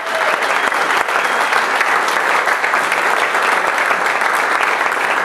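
Audience applauding: many hands clapping in a dense, steady stream.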